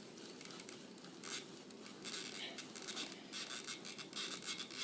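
Closed-face spincast fishing reel being cranked to wind new line onto its spool: bursts of rapid clicking, starting about a second in.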